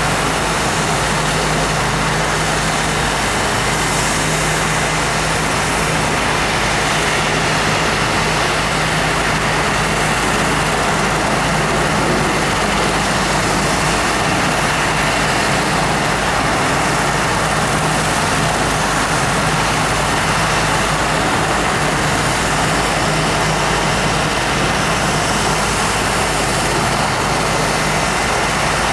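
STARS air ambulance helicopter running steadily on the ground with its rotors turning, a loud continuous turbine and rotor noise with a low steady hum underneath.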